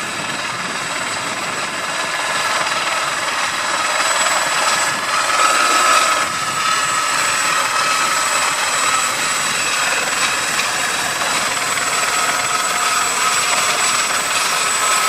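Helicopter running steadily: a continuous rushing noise with steady high-pitched whine tones, getting a little louder about four seconds in.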